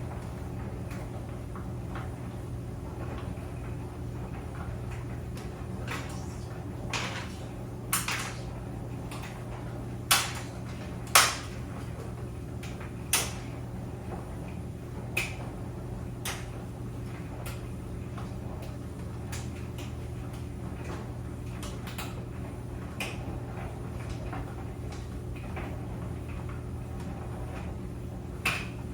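Clothes dryer running with a steady low hum, overlaid by irregular sharp clicks and knocks, a cluster of louder ones about ten to thirteen seconds in.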